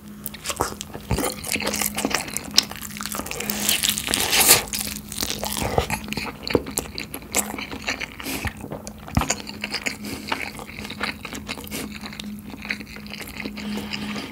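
Crunching bites into spicy sauce-glazed fried chicken and chewing, full of crisp crackles, recorded close up without music. A faint steady hum runs underneath.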